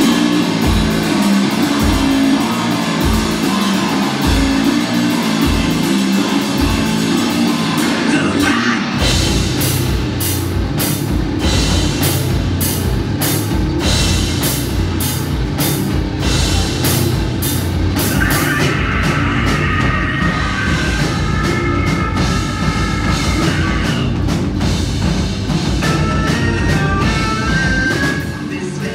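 Live rock band playing loud and heavy: distorted electric guitar and bass riffing over drums, with sparse heavy drum hits at first and the full kit coming in hard about eight or nine seconds in. A higher melodic line rides over the band later on.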